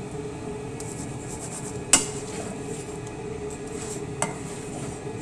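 A kitchen utensil clinks sharply against a frying pan about two seconds in, and more softly a little past four seconds, over a steady low hum.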